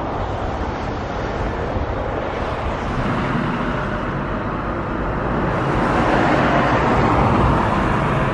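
Road traffic: cars driving past, a steady rush of tyre and engine noise that swells to its loudest as a car goes by in the last few seconds.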